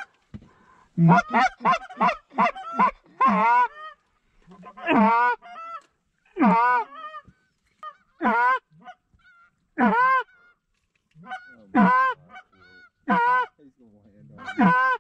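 Loud Canada goose honks: a quick run of about six short clucking notes in the first few seconds, then single drawn-out honks about every one and a half seconds, each rising then falling in pitch.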